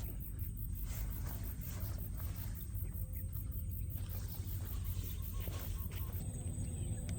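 Outdoor ambience: insects chirping in a fast, even pulse over a steady low rumble, with a few faint clicks.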